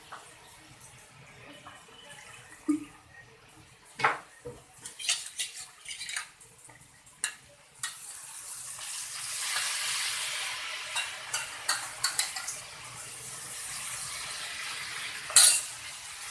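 Metal spoon clinking and knocking against a cooking pan, then from about eight seconds in a steady sizzle as the ground garlic, green chilli and coriander masala fries in hot oil, with scattered spoon scrapes while it is stirred. One loud clack comes near the end.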